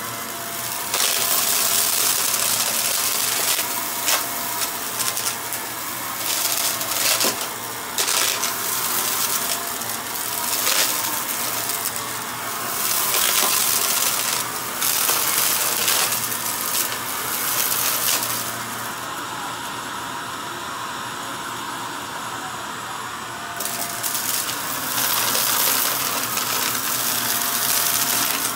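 Upright vacuum cleaner running on carpet, pushed back and forth so its sound swells and eases, with grit and small debris clicking and rattling as it is sucked up. Its high hiss drops for a few seconds about two-thirds of the way through.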